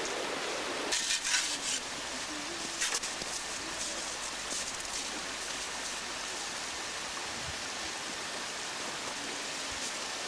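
Steady outdoor rushing noise, with a few faint knocks and rustles about a second in and again near three seconds.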